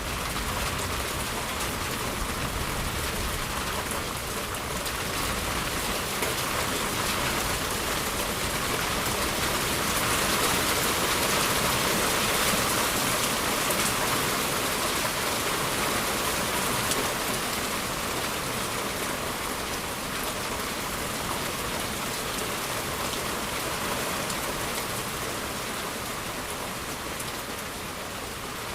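Steady heavy rain pattering down on surfaces, swelling a little louder around the middle.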